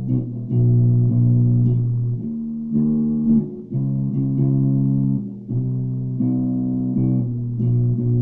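Four-string Ibanez Jumpstart electric bass playing a slow riff of plucked, sustained notes that change every half second to a second. Recorded on a phone, which the player says gives a bad sound.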